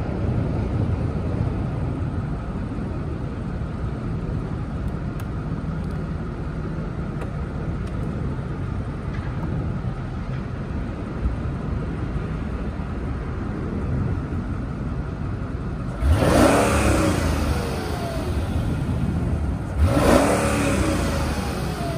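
2003 Mercedes-Benz SL500's V8 idling with a steady hum while the retractable hardtop closes, then revved twice, about 16 and 20 seconds in, each rev rising quickly and falling back to idle.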